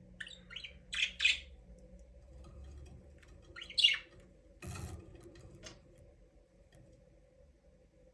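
Budgerigars giving short, sharp chirps and squawks: a quick cluster in the first second and a half and a loud one about four seconds in. A brief rustling burst follows just under five seconds in, then only faint calls.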